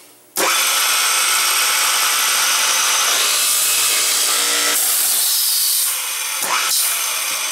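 Hinge boring machine starting with a sudden loud rush about half a second in. Its 56C-frame electric motor drives the bits down into a plywood panel, boring the hinge cup holes. The sound gets quieter about six seconds in, as the head lifts and the motor runs on.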